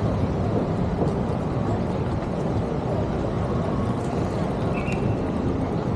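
Steady city street traffic noise heavily mixed with low wind rumble on the microphone of a moving bike-mounted camera.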